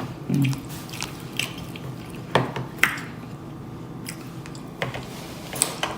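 Close-up mouth sounds of eating fried seafood: chewing and lip smacking with scattered wet clicks. A brief low vocal hum comes just after the start.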